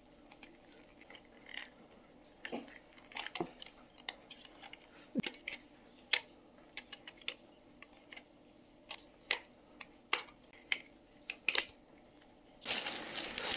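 Scattered light clicks and taps of hard plastic and rubber as a handheld digital multimeter is pulled out of its rubber protective holster and handled, with a rustle near the end.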